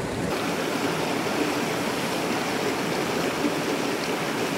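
Small, shallow stream running over rocks close by, a steady sound of flowing water.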